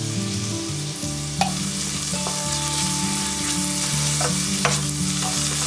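Minced lean meat, ginger and thick broad-bean sauce sizzling in oil in a stainless steel pan while a wooden spatula stirs them, with a couple of sharper scrapes of the spatula against the pan.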